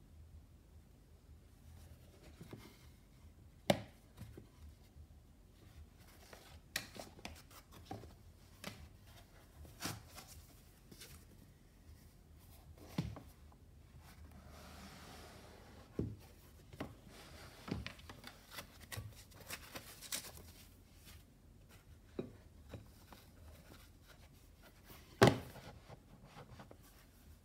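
A rigid cardboard gift box and its foam-packed contents being handled: scattered light knocks and taps, a stretch of soft rustling about halfway through, and two sharper knocks, one about four seconds in and one near the end.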